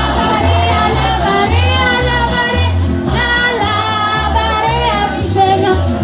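Music with a singing voice over a pulsing bass line, played for the clowns to dance to.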